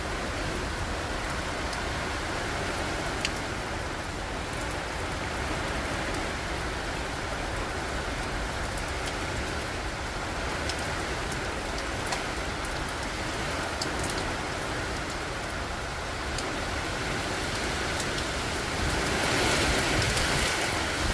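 Heavy typhoon rain falling steadily, a dense hiss with scattered sharp drop ticks, growing louder about two seconds before the end.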